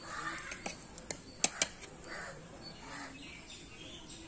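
Steel ladle scooping through cooked biryani rice in a large aluminium pot, a soft scraping rustle broken by a few sharp metal clinks of the ladle against the pot, the loudest two in quick succession about a second and a half in.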